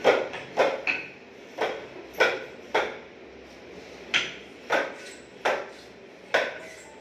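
Hammer striking PVC wall panelling as it is fixed to the wall: about ten sharp strikes in small groups at uneven gaps, each with a brief ring.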